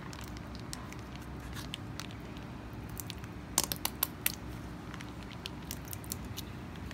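Soft plastic pouch of mayonnaise being squeezed out over a bowl of salad: scattered small crackles and clicks, with a quick run of sharper ones about three and a half seconds in.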